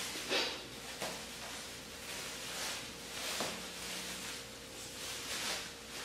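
Plastic bubble wrap crinkling and rustling as it is pulled and unwound by hand, in a series of short irregular crackly bursts, the loudest about half a second in.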